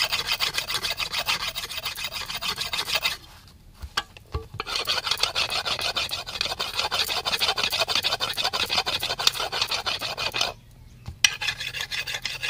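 A hand-held stone rubbed rapidly back and forth along the edge of a large curved metal cutting blade (a fansul), sharpening it. The scraping is fast and even, about six strokes a second, and stops briefly about three seconds in and again near the end.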